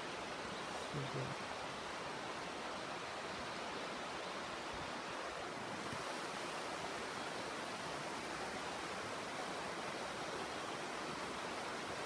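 Steady, even rushing of distant river water flowing over the rapids in the gorge below, with a brief low hum about a second in.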